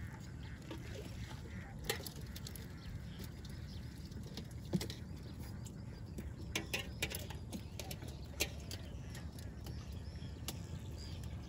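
A low, steady rumble with a few scattered light knocks and clicks, the loudest a little before two seconds in, near five seconds, and several around seven to eight seconds.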